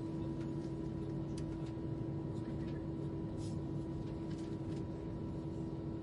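Steady cabin drone inside an Airbus A320, engine and air-system noise with a constant low hum and a fainter higher tone running through it. A few faint light ticks now and then.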